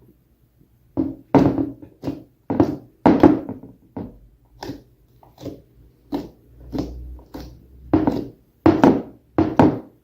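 Slime being squeezed and pressed by hand: a run of short squishes and thunks, irregular at about one to two a second, starting about a second in.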